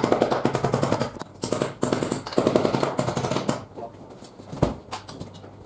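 A fast run of knocks, many to the second, lasting about three and a half seconds, then one heavy thump about a second later: tool work on a wall while a bar is being fixed in place.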